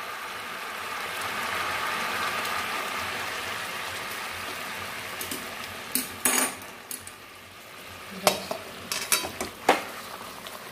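Half-boiled chicken simmering in spiced water in a wide metal pan, a steady bubbling sizzle that is strongest in the first few seconds and then fades. Sharp metal clinks against the pan come about six seconds in and several more near the end.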